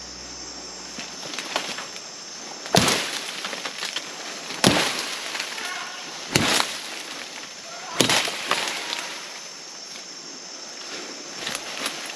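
Four sharp cracks of wood, spaced a little under two seconds apart, as branches of a fallen tree are broken or struck, over a steady high hiss of forest insects.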